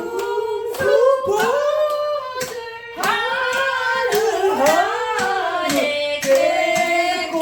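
A person singing a Korean trot song, with hands clapping along to the beat.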